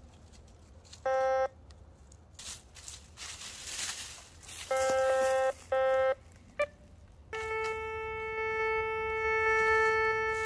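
Handheld metal detector beeping as its coil sweeps the ground: two short beeps about halfway through and a brief chirp, then a steady held tone from about three-quarters of the way in, signalling a possible buried metal target. Dry leaves rustle under the sweep before the beeps.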